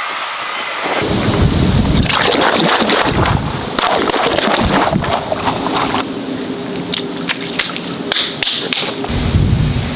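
Water rushing and splashing, with many sharp spatters and scattered thuds starting about a second in.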